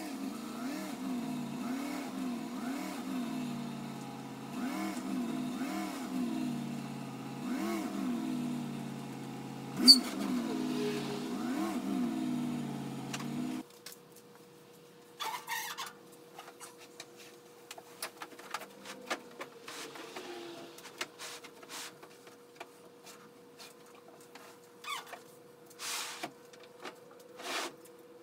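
Pickup truck engine running with its pitch rising and falling as the truck is manoeuvred in reverse, stopping abruptly about halfway through. After that come scattered clicks and knocks as the truck's load is handled at the open tailgate.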